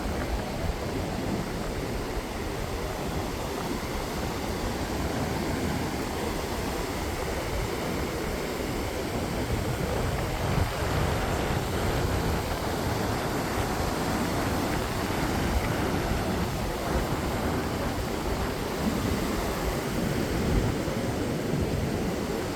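Steady rush of ocean surf on the beach, mixed with wind on the microphone.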